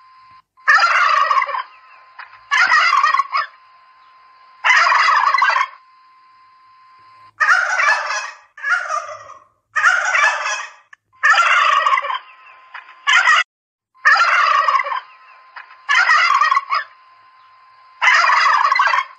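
Domestic turkeys gobbling: about eleven rattling gobbles, each lasting half a second to a second, come one to two seconds apart.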